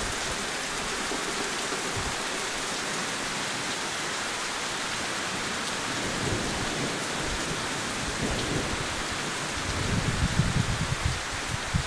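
Heavy rain falling steadily, with a low rumble of thunder that builds near the end.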